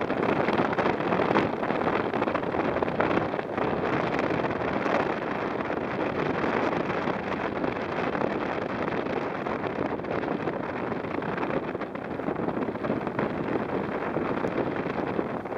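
Wind blowing over the camera microphone, a steady rushing noise.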